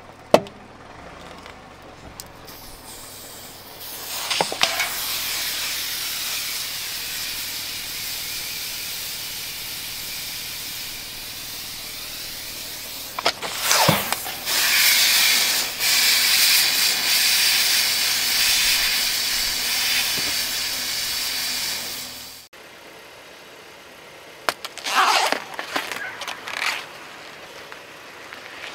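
Aerosol spray can crushed under a car tyre, its gas hissing out loudly and steadily, with a sharper burst about fourteen seconds in; the hiss cuts off suddenly. Then a watermelon squashed under the wheel gives irregular wet crunching and squelching for a few seconds.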